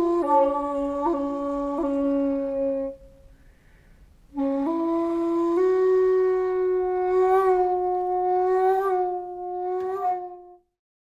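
End-blown bamboo flute playing slow, long held notes with an airy, breathy tone. One low note is held for about three seconds, then a short pause. A second note steps up twice and is held for about five seconds with a few breathy swells, and stops shortly before the end.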